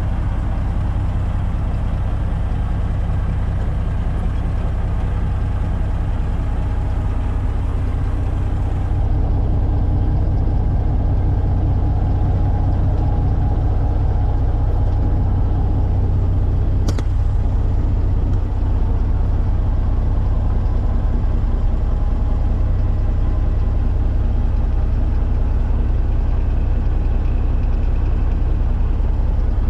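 Diesel engine of a 1992 Ford LTL9000 dump truck idling steadily, heard from inside the cab, with a single sharp click about halfway through.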